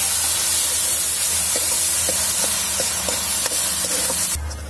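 Crushed onions sizzling in hot refined oil in an aluminium kadai, with a steel ladle stirring and tapping lightly against the pan, as the onions fry towards golden. The sizzle cuts off suddenly near the end.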